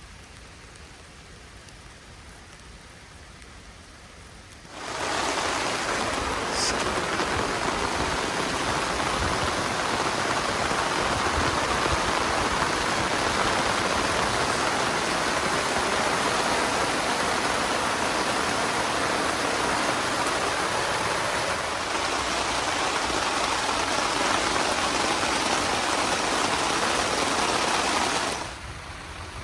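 Loud, steady rushing of water that starts abruptly about five seconds in and cuts off shortly before the end, after a fainter steady hiss. A brief high chirp sounds just after the rushing starts.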